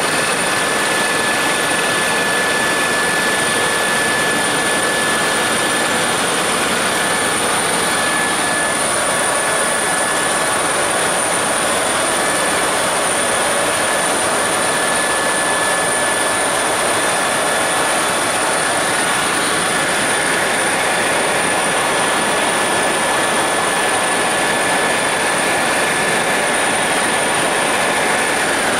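Helicopter cabin noise in fast forward flight: a steady rushing drone with a constant high-pitched whine running through it.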